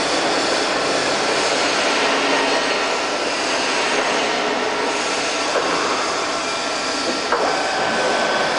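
FAT 630 straight-bed lathe running under power: a steady mechanical din with a faint whine. A click comes about seven seconds in, after which the whine sits slightly higher.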